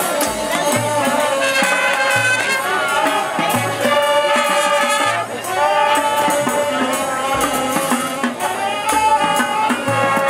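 Marching band playing: brass carrying a held, changing melody over percussion, with a low bass note repeating about once a second.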